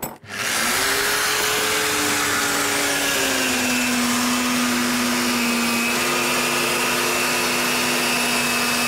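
Westfalia 500 W mini plunge-cut circular saw starting up about half a second in and running steadily as it cuts through laminate flooring, its motor whine dropping slightly in pitch about three seconds in as the blade takes the load.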